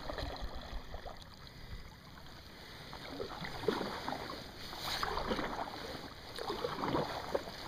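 Kayak paddle strokes in calm pond water: the blades dip, splash and drip in irregular strokes. It is quiet for the first couple of seconds and busier from about halfway through.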